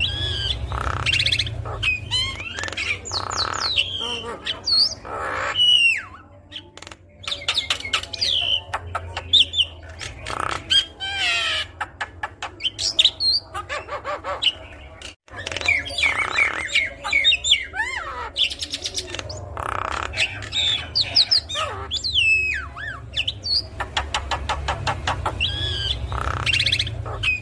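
Javan myna (jalak kebo) singing a long, varied song of sliding whistles, rapid chattering clicks and harsh squawks, over a steady low hum.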